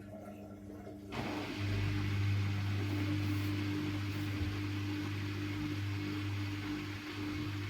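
Siemens Siwamat IQ 716 washing machine: about a second in, a steady electric hum with an even rushing hiss starts up suddenly and runs on steadily.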